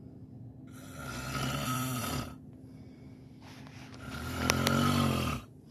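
Snoring: two long snores, each lasting about two seconds, the second louder than the first.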